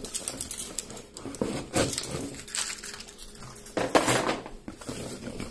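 Keys on a key ring clinking and rattling while a key slits and scrapes the packing tape on a cardboard shipping box, with irregular clicks and rasps of tape and cardboard, loudest about two seconds and four seconds in.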